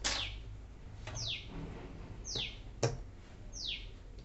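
A bird calling over and over, one short falling chirp about once a second. Two sharp clicks, one at the start and a louder one about three seconds in.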